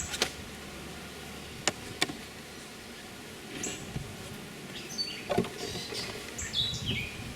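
Wood and metal knocks and scraping from a beehive being opened, over a steady hum of honey bees. Birds chirp several times in the second half.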